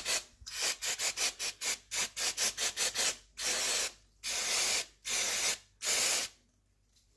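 Brake cleaner sprayed from an aerosol can onto a milling machine's leadscrew shaft. The first three seconds hold a quick run of short noisy strokes, then from about halfway come four hissing blasts of about half a second each.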